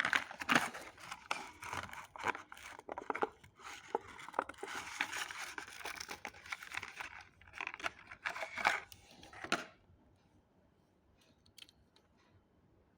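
Toy packaging being torn open and crumpled by hand, in quick irregular crackles and rips. It stops about ten seconds in, leaving only a few faint ticks.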